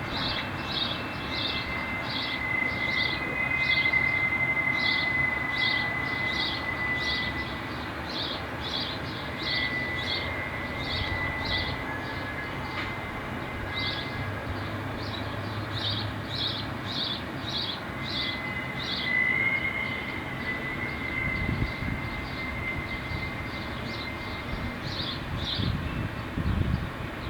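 Distant hump-yard car retarders squealing as freight cars are braked: a high-pitched, steady squeal that fades in and out several times. Under it runs a low rumble of rolling wagons, heaviest near the end, and a bird chirps repeatedly, about twice a second.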